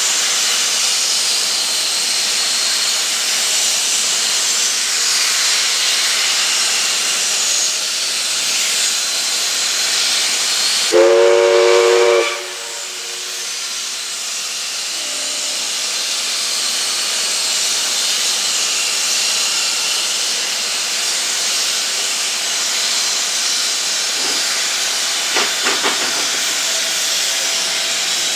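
NSW 59 class steam locomotive 5917 hissing steadily as steam escapes. About eleven seconds in, its chime whistle gives one short blast of about a second.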